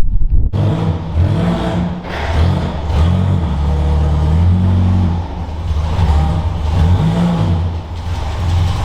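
Car engine running and being revved up and down several times, its note rising and falling unevenly.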